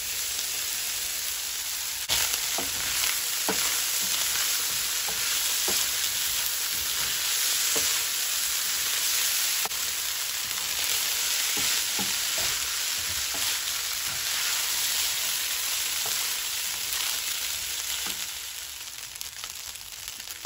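Parboiled rice sizzling as it fries in hot oil with beans and vegetables in a stone-coated nonstick pan, with a silicone spoon stirring and scraping through it. The sizzle gets louder about two seconds in and eases off near the end.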